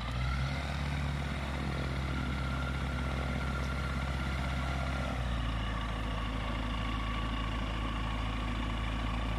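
Single-engine light aircraft's piston engine and propeller running steadily on the ground, heard from some distance, with a slight change in tone about five seconds in.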